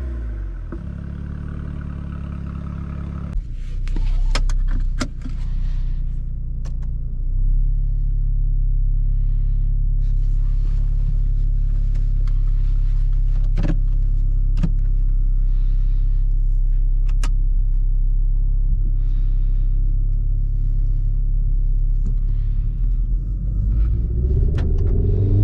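Renault Mégane RS 280's turbocharged 1.8-litre four-cylinder running through a catless exhaust, a steady low drone at constant revs with a few sharp clicks. Near the end the revs begin to rise.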